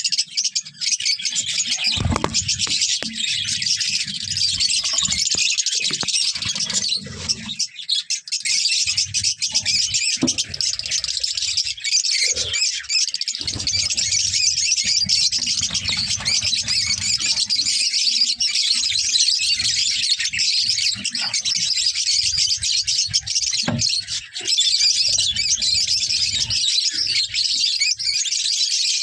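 A flock of caged lovebirds chattering and chirping without a break, many calls overlapping in a continuous high twittering, with a few low thumps underneath.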